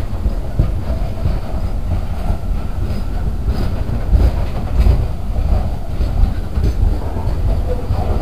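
CSX freight train's cars rolling past at close range: a steady heavy low rumble with irregular clacks and clatter from the wheels on the rails.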